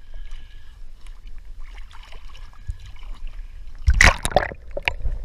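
Water sloshing at the surface against a boat hull, then about four seconds in a loud burst of splashing and bubbling as a scuba diver goes under, followed by a few sharp clicks.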